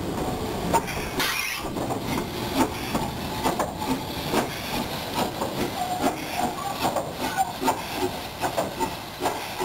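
Steam locomotive No. 825, a Southern Railway S15 4-6-0, moving slowly with steam hissing from its cylinders. A louder burst of hiss comes about a second in, and sharp clanks sound about two a second.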